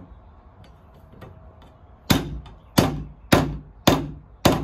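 Hammer knocking a metal joist hanger into place: five sharp blows starting about two seconds in, a little under two a second, each with a short metallic ring.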